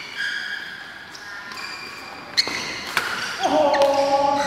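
Badminton rally in a hall: a few sharp racket-on-shuttlecock hits, the loudest about two and a half seconds in, with high squeaks of court shoes on the mat. A longer, louder, lower-pitched squeal comes in near the end.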